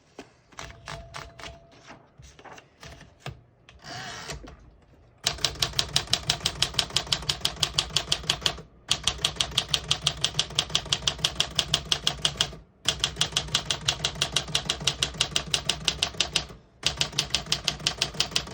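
1952 Smith-Corona Silent portable typewriter. It gives a few light clicks and a short rasp, then about five seconds in its keys are typed rapidly in even runs of about eight strokes a second, with three brief pauses. Every key strikes cleanly, with none skipping or sticking, and the sound is a little more muffled than a typical typewriter.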